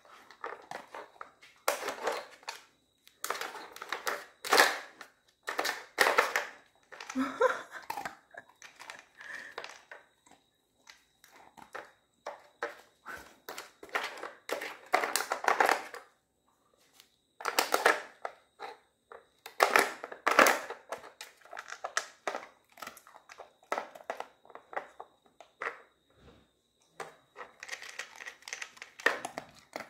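Nina Ottosson Hide N Slide plastic dog puzzle being nosed and pawed by a dog hunting for treats: irregular clatter and scraping of the plastic sliders and pegs, in bursts with short pauses.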